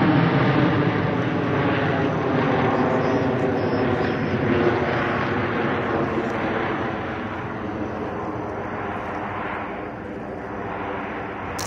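Jet noise from the Frecce Tricolori formation of Aermacchi MB-339 trainers climbing away overhead: a steady drone with a hum of several even tones, slowly fading as the aircraft draw off.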